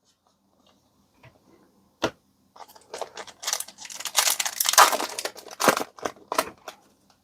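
Foil trading-card booster pack wrapper crinkling and tearing as it is handled and opened: irregular rustling and crackling from about two and a half seconds in, loudest in the middle. A single sharp click comes just before.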